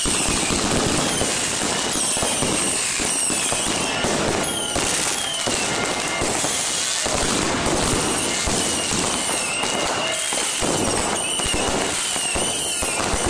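Fireworks and firecrackers going off in a dense, continuous barrage of rapid cracks and bangs. Many short whistling tones sound over the crackle throughout.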